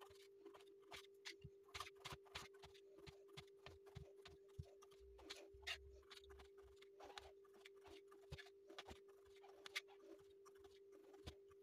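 Near silence: faint, irregular clicks and ticks over a steady faint hum.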